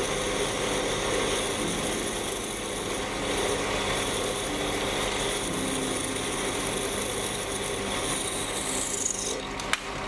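A small power tool or machine tool runs steadily while cutting metal, making a dense, even noise. Near the end a faint high whine falls in pitch, followed by a sharp click.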